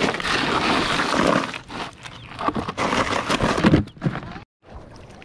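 Irregular knocking and rattling of freshly caught skipjack and ice in a plastic cooler. It breaks off abruptly about four and a half seconds in.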